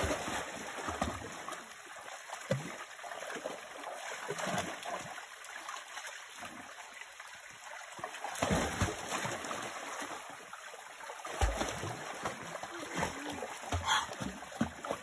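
A dog wading and swimming in a shallow creek, splashing irregularly over the steady rush of flowing water, with the loudest splashes about halfway through and again a few seconds later.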